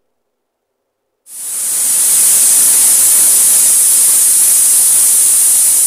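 Pressure cooker whistle: the weighted valve on an aluminium stovetop pressure cooker lets out a loud, steady jet of hissing steam. It starts about a second in and builds quickly, the sign that the cooker has come up to full pressure.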